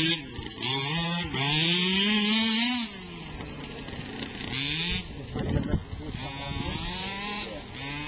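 Small two-stroke engine of a gasoline remote-control car revving up and down as it drives, its pitch rising and falling. It is loudest in the first three seconds, then fainter as the car runs farther off.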